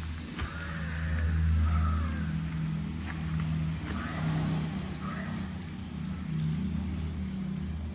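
Mahindra 475 DI tractor's diesel engine idling steadily, a low even rumble with a regular pulse.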